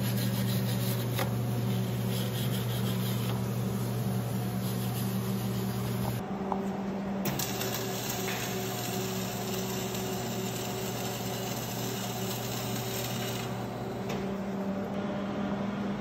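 Flux-core wire-feed (MIG) welding arc crackling steadily, with the low electric hum of the Thermal Arc Fabricator 250 welder under it. The sound changes abruptly about six seconds in.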